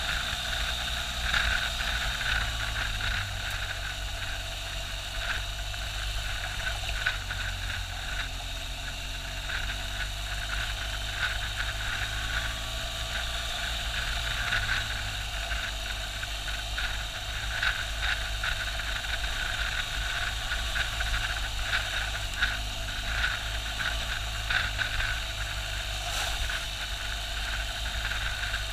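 BMW R1200GS boxer-twin engine running at a steady pace while riding a gravel road, mixed with wind and road noise. Frequent short knocks come from the rough surface.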